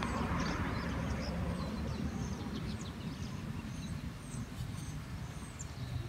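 Outdoor ambience: birds chirping with many short, high, quickly falling notes over a steady low rumble. A broader noise fades away during the first second.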